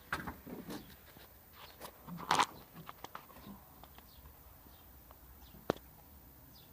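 Scattered light knocks, clicks and rustling, with a louder knock about two seconds in and a sharp click near the end.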